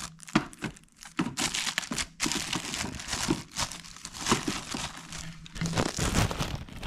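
Thin plastic packaging bag crinkling and rustling irregularly as a bagged part is handled and lifted out of a box.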